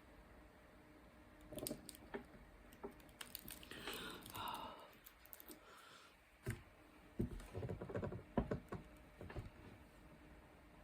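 Scattered small plastic clicks and taps of diamond-painting work: a drill pen, wax and resin drills handled and pressed onto the canvas. A short squeaky sound comes about four seconds in.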